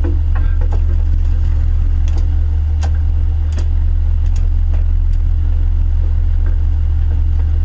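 A fishing boat's engine running steadily as a deep, loud hum, with several sharp knocks and clicks from work on the deck.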